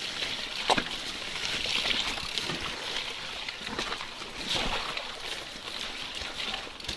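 Mountain bike riding over wet, muddy trail: the hiss and splash of tyres through mud and puddles, with scattered knocks and rattles from the bike over roots and rocks.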